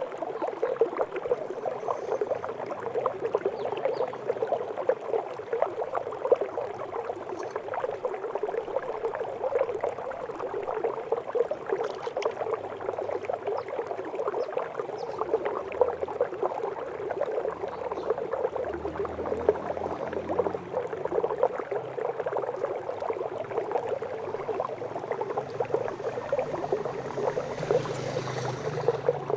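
Water from a miniature decorative waterfall trickling and splashing steadily into its small basin.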